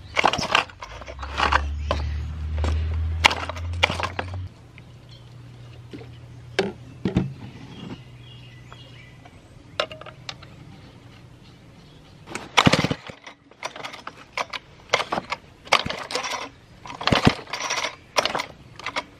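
Knocks and clicks of parts being handled, then, from about two-thirds of the way in, a quick series of pulls on the 1950s David Bradley chainsaw's recoil starter cord, about two a second, each a short rasping whir. The engine doesn't fire, which the owner puts down to an ignition problem.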